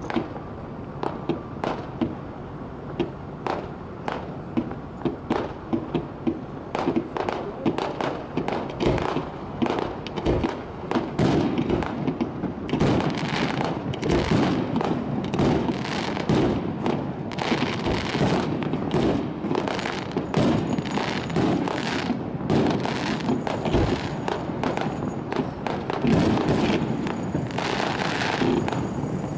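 Fireworks display: aerial shells bursting in a rapid run of bangs with crackling between them. The bangs are spaced out at first, then come thick and almost continuous about twelve seconds in.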